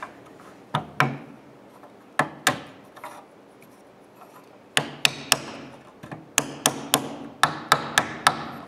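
Wooden mallet tapping a scrap wooden spacer to drive the spacers down to the bottom of the spindle groove in a glued-up frame. About fifteen sharp taps: two pairs at first, then quicker runs of taps in the second half.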